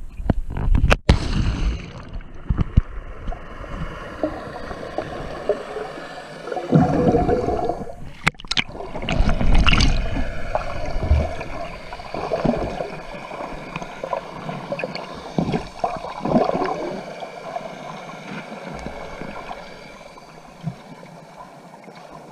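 Water gurgling and sloshing close to the microphone, uneven and swelling, with a sharp knock about a second in and another near the middle.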